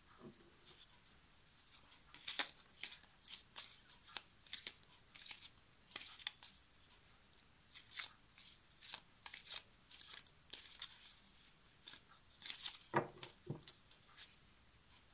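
A deck of oracle cards shuffled by hand: quiet, irregular snaps and slaps of the cards sliding against each other, with one louder knock near the end as the deck is tapped together.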